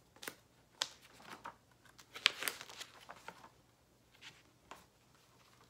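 A picture book being opened and handled: scattered rustles of the cover and pages, with a few light taps, the loudest about two seconds in.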